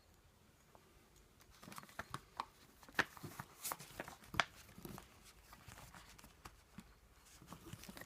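Packaging being handled during unboxing: a run of crinkles, taps and clicks from about one and a half to five seconds in, then fainter rustling near the end.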